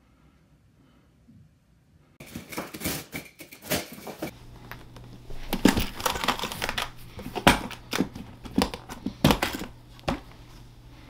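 Cardboard shipping box being opened and unpacked: tape tearing and packing material crinkling in a run of sharp rustles, after about two seconds of near quiet. A low steady hum comes in about four seconds in.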